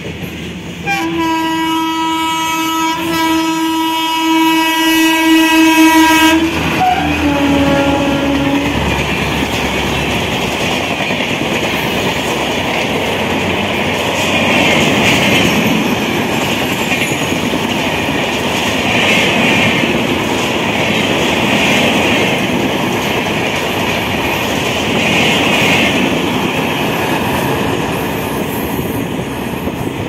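A locomotive horn is blown long for about five seconds, then drops in pitch for a shorter blast as the locomotive goes past. After that comes the steady rush and clatter of a long train of passenger coaches running through at speed.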